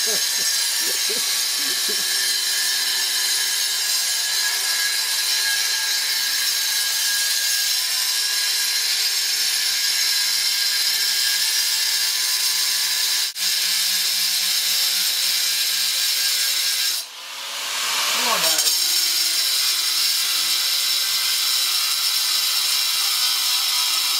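Angle grinder cutting through a rusty cast-iron boiler section, with a steady high-pitched grinding of the abrasive disc on iron. About two-thirds through, the grinder comes off the cut: the sound drops and falls in pitch, then builds back up as the cut resumes.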